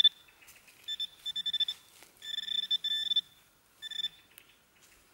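Metal-detecting pinpointer beeping in short, irregular bursts as it is probed through dug soil, sounding off on a buried metal target. A faint low buzz runs under the longer beeps.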